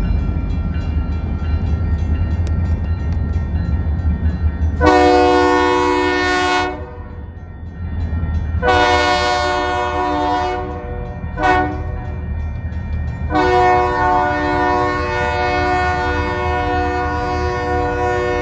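Horn of a Union Pacific EMD SD40N diesel locomotive leading a light-engine move, sounding the grade-crossing signal: two long blasts, a short one, then a long one held to the end. Under the horn the low rumble of the two locomotives' diesel engines runs steadily. The horn sounds as a chord of several tones.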